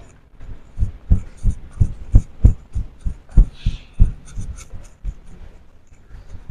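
Footsteps going down stone stairs: dull thumps at about three a second, getting softer about five seconds in as the walker reaches the flat floor.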